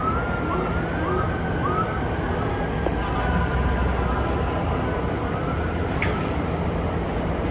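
Emergency vehicle siren sounding in short rising and falling whoops during the first couple of seconds, then fading, over a steady low rumble of engines and street noise.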